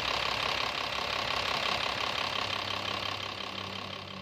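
Hino 500's six-cylinder diesel engine idling steadily after a head gasket replacement, fading away toward the end.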